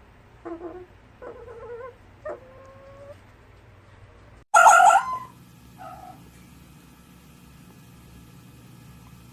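Fox calls: a few short, pitched yelping calls in the first three seconds, then one loud scream-like call about four and a half seconds in, followed by a single faint short call.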